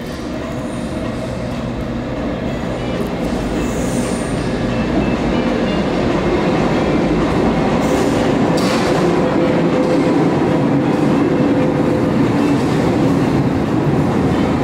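Lisbon Metro train approaching through the tunnel and running into the station alongside the platform, its rumble and wheel noise growing steadily louder.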